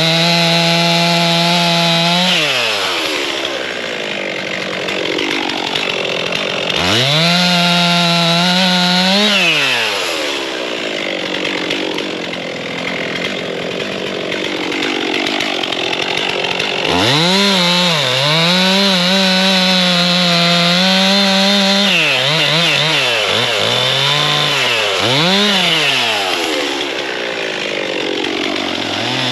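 Stihl two-stroke chainsaw revving to full throttle and cutting firewood logs in several passes, dropping back toward idle between cuts, with a few quick throttle blips near the end.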